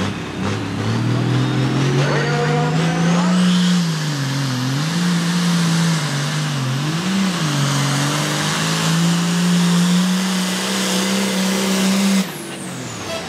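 Diesel pulling tractor at full throttle dragging a weight-transfer sled, its engine note dipping and recovering several times under the load. A high whine climbs over the first few seconds. The engine sound cuts off suddenly about a second before the end.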